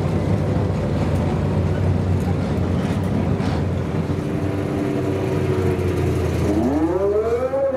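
Four-cylinder mini-stock race car engines running, with one revving up about six and a half seconds in, its pitch rising for about a second and then holding.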